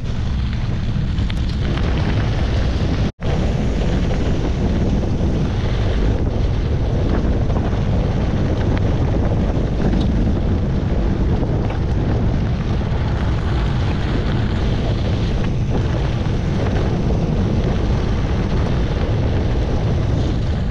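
Loud wind noise buffeting the microphone of a camera on a gravel bike while it rides along a gravel road. The sound drops out for an instant about three seconds in.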